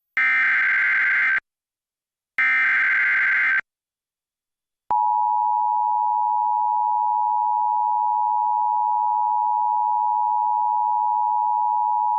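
Emergency Alert System activation: the last two of three SAME header data bursts, each about a second long, then a steady electronic attention tone that begins about five seconds in. It signals the start of a flood warning alert.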